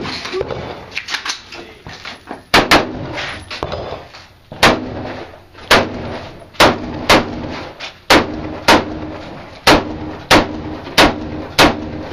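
About a dozen AR-15 rifle shots, the first coming about two and a half seconds in, then fired in quick pairs and singles roughly half a second to a second apart as the shooter engages targets one after another.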